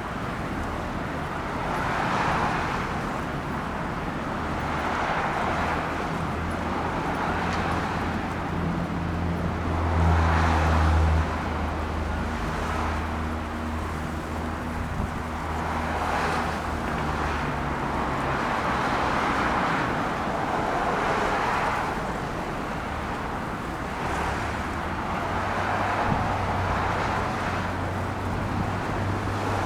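Road traffic: motor vehicles passing one after another every few seconds over a steady low engine hum that grows loudest about ten seconds in.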